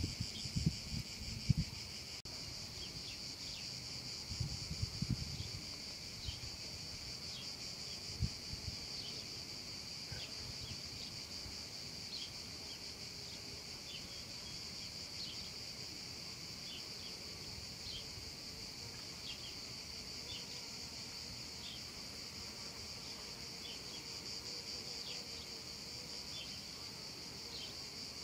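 Cicadas singing in a steady, continuous high-pitched buzz, with short chirps dotted through it. A few low thumps in the first several seconds.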